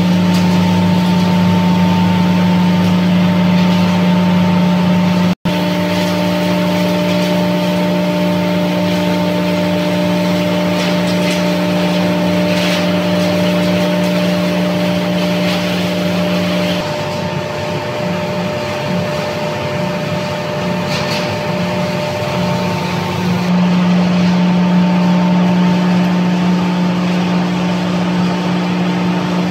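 Straw hammer mill and pellet mill production line running, crushing straw: a loud, steady electric machine hum with a low drone and higher tones above it. The hum turns rougher for a few seconds about two-thirds of the way through, then steadies again.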